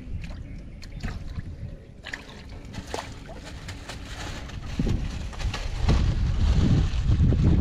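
Shallow water sloshing and splashing in the bottom of a wooden fishing boat as freshly netted fish are handled, with scattered sharp knocks and clicks. A low rumble grows louder from about five seconds in.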